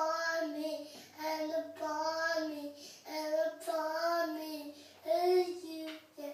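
A young boy singing: a string of short held phrases, each about a second long, with brief breaks between them.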